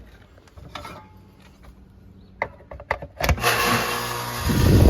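A few light clicks and taps, then about three seconds in an air-conditioning condenser unit starts up: a steady hum, joined a second later by the louder low rush of the condenser fan. The unit is starting on a replacement run capacitor after the old one tested dead.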